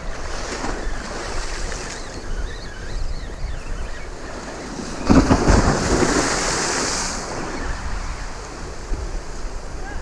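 Sea waves washing against a rock ledge, with one wave breaking and splashing up sharply about five seconds in, the loudest moment. Wind buffets the microphone throughout.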